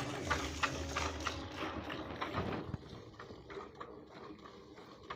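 Fast hand milking of a cow: short squirts of milk hitting the bucket at about four a second, from both hands alternating. The strokes drop in level about halfway through.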